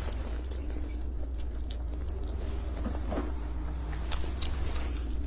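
Close-up chewing of a mouthful of grilled sausage, with small wet mouth clicks scattered through it, over a steady low hum.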